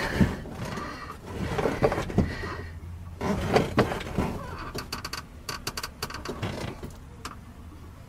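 Brake pedal of a 1972 VW Beetle being pumped and held by foot, giving a series of clunks and knocks, then a run of short sharp clicks from the pedal and its linkage. Pressure is being built and held in freshly filled brake lines that still hold air, to check for a rupture.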